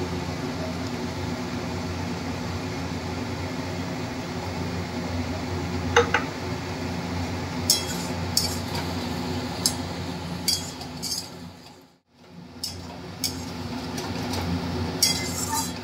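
A metal spatula scraping and clinking against an aluminium kadai while stirring, with scattered sharp strikes, most of them in the second half, over a steady low hum.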